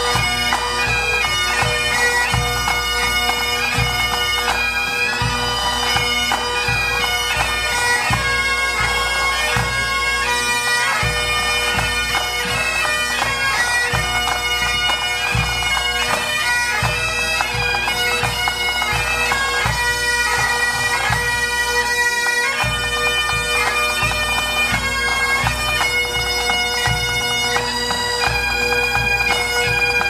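A pipe band playing: Great Highland bagpipes carry a tune over steady, unbroken drones, with snare, tenor and bass drums beating along.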